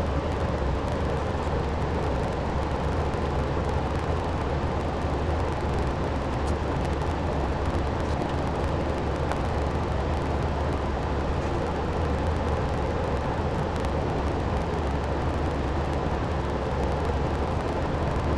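Steady low hum with a hiss over it from running machinery, unchanging throughout.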